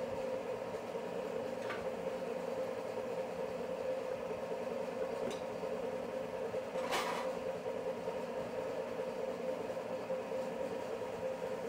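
Steady mechanical hum of workshop machinery at one even pitch, with a faint click a couple of seconds in and a short sharp hiss like a burst of air about seven seconds in.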